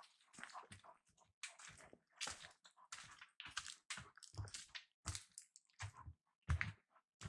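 Footsteps crunching through dry fallen leaves on a woodland trail, about two steps a second, with a heavier thud about two-thirds of the way in.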